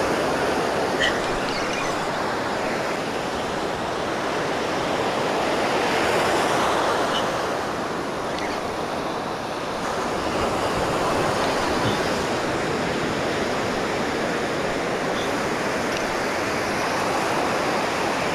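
Ocean surf breaking and washing up the beach: a steady rush that swells and eases every few seconds.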